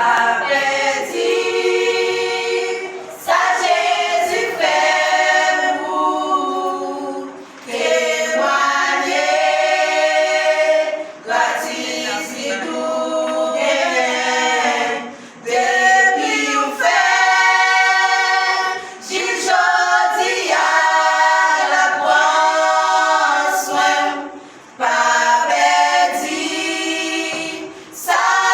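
A gospel choir singing a cappella, several voices in harmony, in phrases separated by short breaths.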